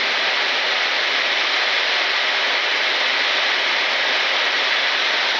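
Steady rushing hiss of airflow in a Boeing 747-8 freighter's flight deck at high speed.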